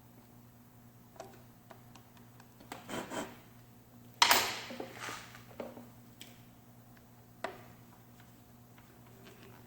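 Scattered clicks, knocks and rubbing scrapes of something being handled, the loudest a sudden scrape about four seconds in that fades over about a second.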